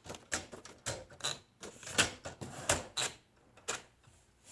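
Keys of a 1960 Erika Aztec 500 manual typewriter being typed, each typebar striking the platen with a sharp clack at an uneven pace of about two to three strikes a second, with a short pause near the end.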